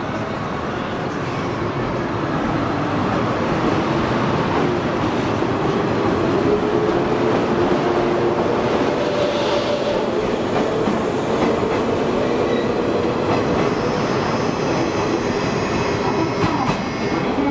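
JR 113 series electric train pulling out of the platform and running past, its traction motors humming with a pitch that slowly rises as it gathers speed, over the rattle of wheels on the rails. A thin high whine joins in near the end.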